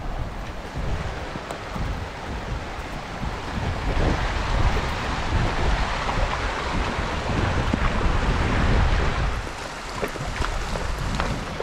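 Wind buffeting the microphone over the rush of a fast, shallow mountain creek. The water's rush grows louder about a third of the way in as the horse wades into the stream, and a few short hoof splashes come near the end.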